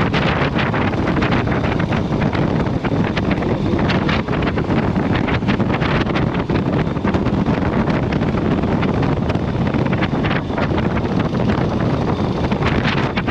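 Wind rushing and buffeting against a riding camera's microphone on a moving motorcycle, with the motorcycle's engine and road noise running underneath.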